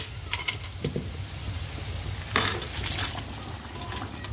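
Metal cookware clattering as boiled beef is tipped from a pressure cooker pot into a kadai of frying masala: a few light clicks, then one loud clank about two and a half seconds in, over a steady low hum.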